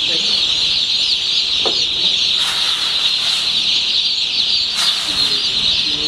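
A dense, steady chorus of high peeping from a brooder ring crowded with young broiler chicks. A few brief rustles rise out of it now and then.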